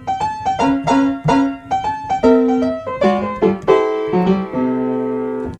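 Short piano jingle: a bright run of quick notes that settles into a held chord near the end and cuts off abruptly.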